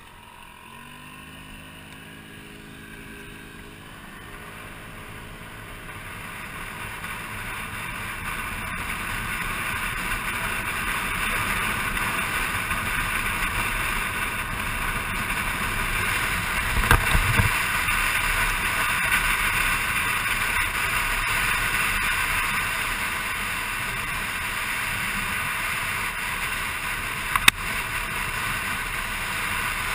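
Motor scooter pulling away, its engine rising in pitch, then steady wind and road noise building as it rides along a gravel road. A low thump comes about halfway through, and a sharp click near the end.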